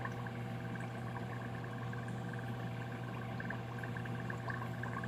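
Steady electric hum of aquarium equipment, such as an air pump or water pump, with faint bubbling and small ticks of moving water.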